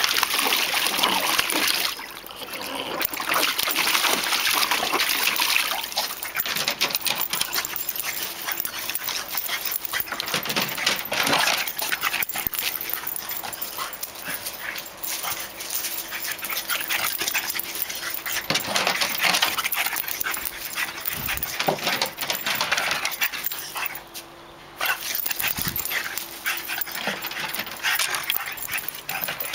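A French bulldog splashing about in a plastic paddling pool, then running around the garden and decking.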